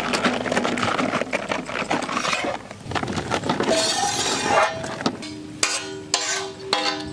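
Metal spatulas scraping and clattering on a large iron griddle as stir-fried noodles are scooped off it. About five seconds in, a sharp metallic strike rings on for a couple of seconds.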